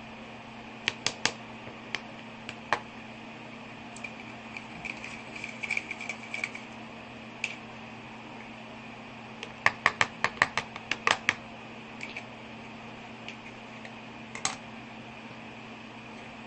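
Light sharp clicks and taps from a small plastic glitter container being handled and tapped out over slime, with a quick run of about eight clicks around the middle and a short rustle a little before it.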